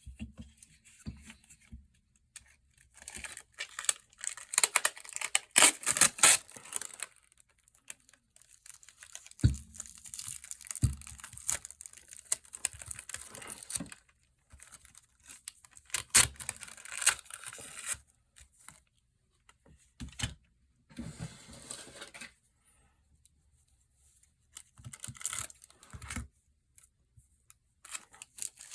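Clear adhesive tape being pulled off its roll and torn, then pressed down onto a phone's glass back, in irregular bursts of rasping and crinkling with a few sharp clicks.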